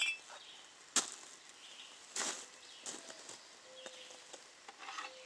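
Kiln bricks being set by hand: a sharp knock of brick on brick about a second in, then scraping and shuffling of bricks and mortar.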